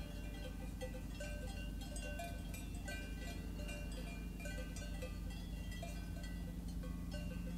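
Alpine cowbells on grazing cattle clanking and ringing irregularly at several different pitches, over a steady low hum that grows slightly louder near the end.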